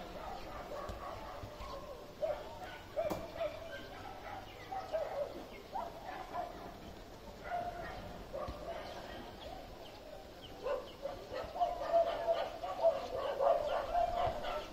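Dogs barking now and then, with faint voices in the background; the barks come more often and louder in the last few seconds.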